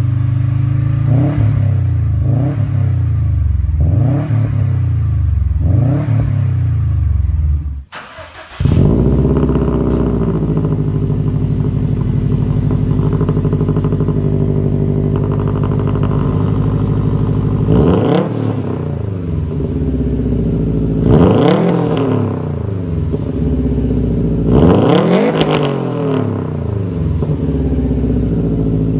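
Subaru WRX STI turbocharged flat-four engine heard at its quad-tip exhaust, revved four times in quick blips. After a brief break it idles steadily and is revved three more times.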